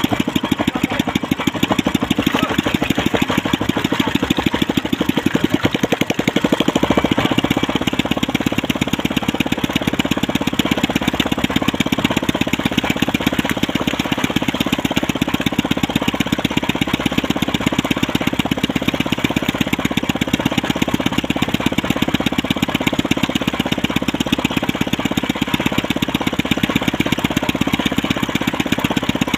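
Small fishing boat's engine idling, a steady even putter.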